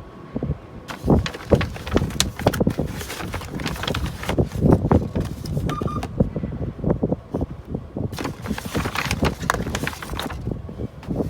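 Irregular clattering and rustling of objects being handled, with a short electronic beep about six seconds in.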